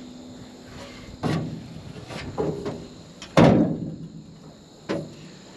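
Four knocks and thumps from a door being opened and shut, the loudest one about three and a half seconds in.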